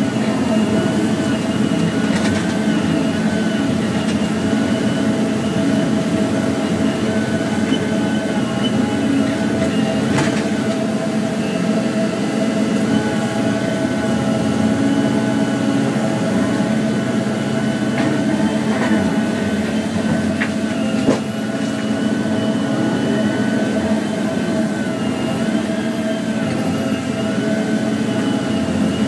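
Volvo 3329FM feller buncher's diesel engine running steadily under load, with hydraulic whine that shifts in pitch as the Satco 630 felling head is worked. A few short sharp knocks, the loudest about 21 seconds in.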